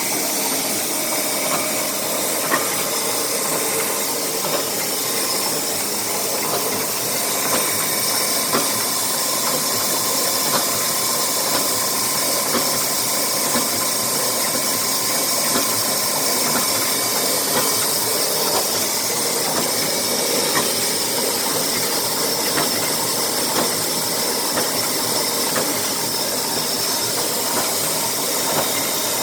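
ZJT-1500 machine running steadily on its replaced motor: a continuous hissing machine noise with a faint steady whine and scattered light ticks.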